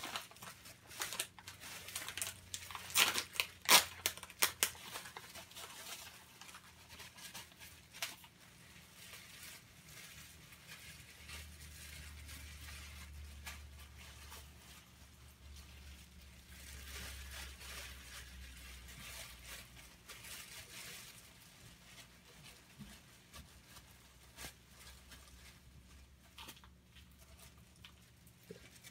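A plastic food bag crinkling and rustling as tilapia pieces are coated in breading inside it. The sharpest crackles come about three to four seconds in, and softer rustling follows later.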